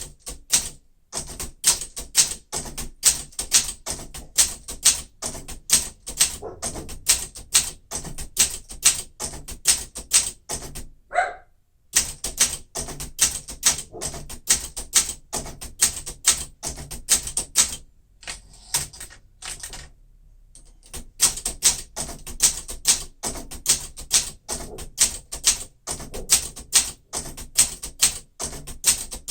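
1972 Olympia SM9 manual portable typewriter being typed on at a quick, even pace, each keystroke a sharp clack of the typebar striking the platen. The typing stops briefly about eleven seconds in and again for a few seconds past the middle, then carries on.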